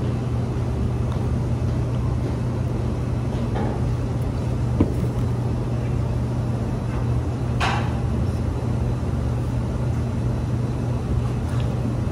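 Steady machine hum with a strong low drone, with a single sharp click a little before the middle and a short rustle a little past it.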